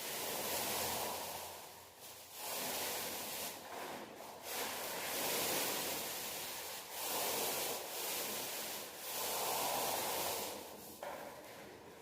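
Paint being applied to a wall with a brush or roller: a series of rubbing strokes, each lasting a second or two with short breaks between them.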